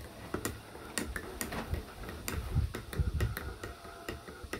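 Metal spoon clinking against a ceramic mug while stirring instant turmeric tea, a few light irregular taps a second.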